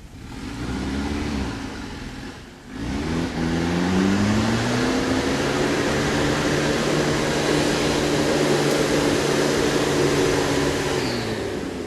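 Off-road 4x4's engine revving hard: a short burst of revs, a brief drop about two and a half seconds in, then the revs climb and hold high for several seconds before easing off near the end.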